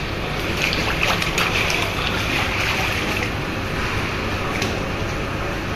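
Steady background noise with faint wet slaps and soft clicks as a raw red snapper fillet is handled on a wet plastic cutting board.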